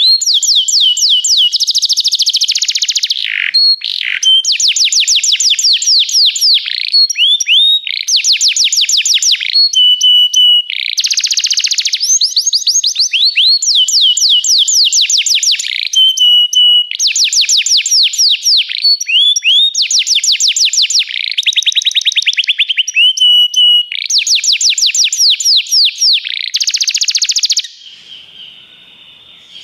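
Domestic canary singing a loud, continuous song of rapid repeated phrases: runs of fast downward-sweeping notes alternating with short steady trills. The song stops near the end.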